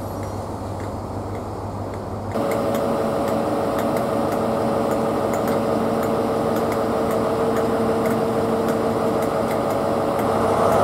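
GWR High Speed Train Mk3 coaches rolling past. About two seconds in, a cut switches to the diesel engine of a Class 43 power car running steadily with a hum of several held tones as it pulls slowly away.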